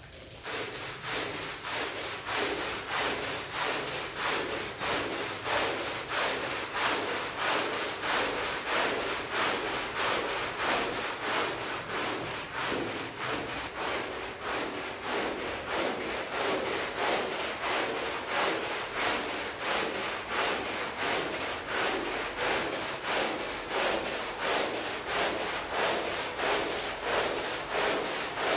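A stiff brush scrubbing a rug in quick, even back-and-forth strokes.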